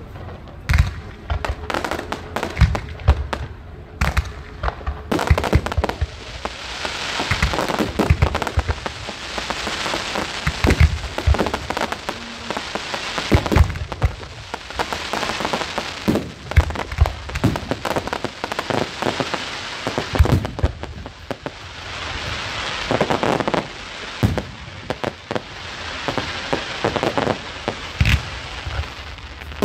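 Fireworks going off: sharp bangs throughout, joined about five seconds in by dense, continuous crackling that swells and fades in waves.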